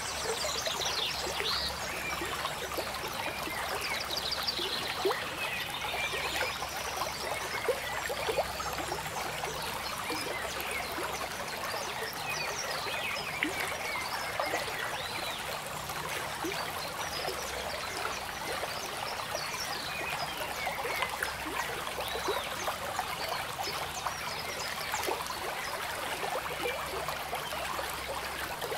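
Steady trickling, running water, with small chirps scattered through it.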